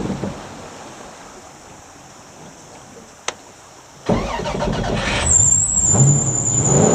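Jet boat engine running low and quiet, then suddenly opening up about four seconds in and accelerating, its pitch rising, with a high steady whine joining about a second later. A single short tick comes just before the engine opens up.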